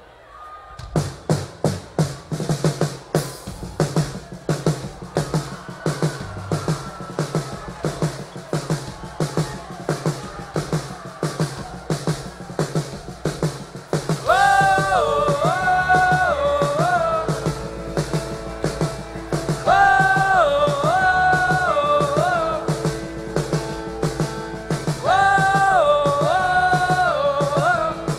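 Live rock band playing an instrumental intro: a drum kit beat with bass comes in about a second in, and about halfway a lead melody starts over it, repeating the same short phrase three times.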